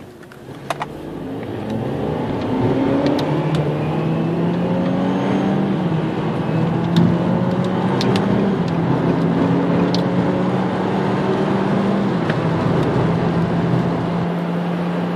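Car engine noise heard from inside the cabin under hard acceleration from a standstill. It grows louder over the first couple of seconds, and its pitch climbs, then drops back at each of several gear changes.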